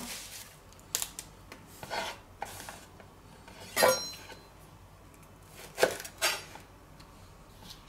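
Chef's knife slicing through white cabbage on a wooden cutting board: a handful of separate cuts, the loudest about four seconds in, with cling film rustling around the cabbage at the start.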